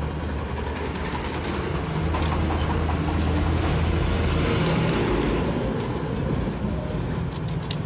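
A motor vehicle engine running with a steady low hum, growing louder about two seconds in and easing off slightly after about five seconds.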